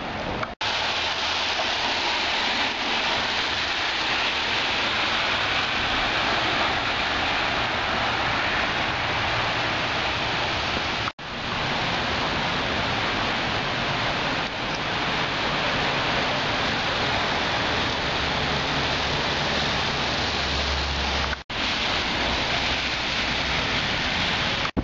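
Steady hiss of heavy rain with wind, broken three times by brief dropouts.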